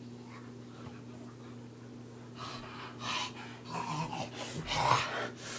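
A faint steady hum, then from about two and a half seconds in a run of breathy huffs and gasps from a person, growing louder as they come close to the microphone.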